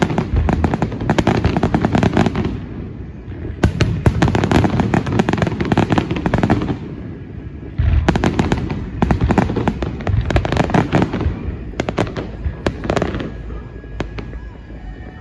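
Aerial fireworks bursting and crackling: dense, rapid crackles in several waves, with a heavy shell burst about eight seconds in. The crackling dies away near the end.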